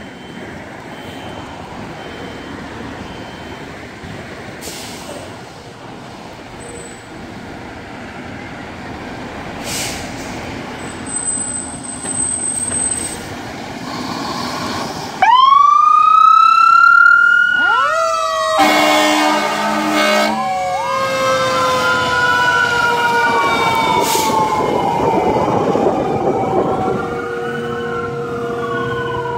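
Fire engine's diesel engine running as the truck pulls out. About halfway through its siren starts suddenly, rising and falling in pitch, with a horn blast of about two seconds a few seconds later, and the siren keeps wailing as the truck drives off.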